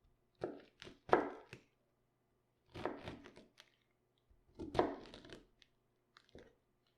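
Crisp crunching of raw cabbage being cut, in about six separate strokes with a light thunk at the start of some; the loudest comes about a second in.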